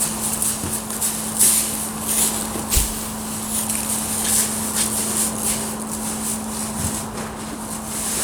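Footsteps and irregular rustling, crunching handling sounds around the clamp's plastic sheet and bales, over a steady low hum.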